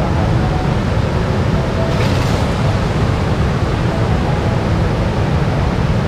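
Steady roar of rushing river water by a waterfall, a continuous rumbling hiss with no pauses.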